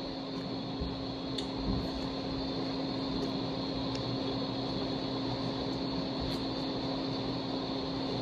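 Steady mechanical hum with a constant low tone, like a room air conditioner or fan running, with a few faint clicks scattered through it.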